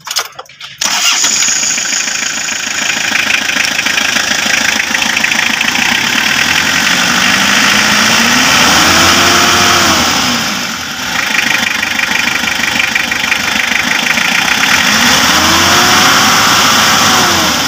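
Toyota HiAce diesel engine catching and starting under a second in, then idling. It is revved up and let back down twice, about eight seconds in and again near the end.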